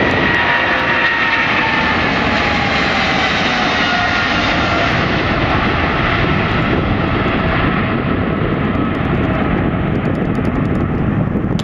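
Boeing 777-300ER's twin GE90-115B turbofans at takeoff thrust as the airliner rolls past on its takeoff run. A high fan whine falls in pitch as it passes, then gives way to a deepening rumble with some crackle as it moves away and rotates.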